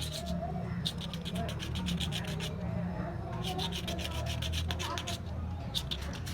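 Sandpaper rubbed by hand around a ceiling fan's metal ring, in quick back-and-forth strokes of about five a second, coming in runs broken by short pauses. The sanding cleans off light burrs that make the fan noisy, leaving the ring shiny.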